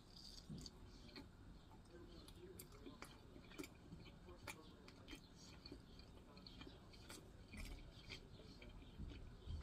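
Soft chewing of sauce-covered barbecue ribs, with many small wet mouth clicks and smacks scattered throughout.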